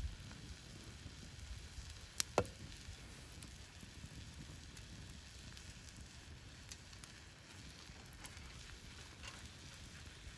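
Wood campfire crackling faintly, with scattered small pops and two sharper snaps a little over two seconds in.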